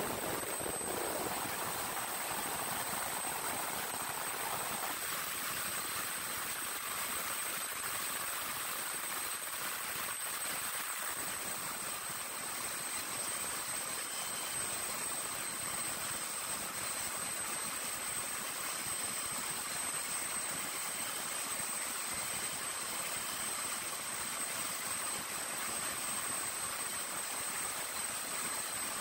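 A machine running steadily: an even rushing hiss with a constant high-pitched whine over it, unchanging throughout.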